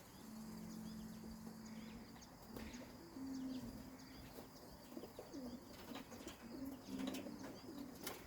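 Racing pigeons cooing: several low coos, each held for a second or so, with a few faint clicks.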